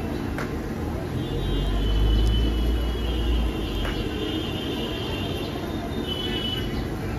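Busy street traffic. A heavy vehicle's engine rumbles low and swells about a second and a half in, while a high-pitched squeal, like brakes or metal wheels, holds over it for several seconds.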